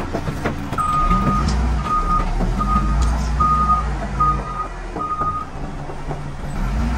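Reversing alarm on heavy equipment beeping six times, about one beep every 0.8 seconds, over the machine's engine running low underneath. The engine picks up about a second in.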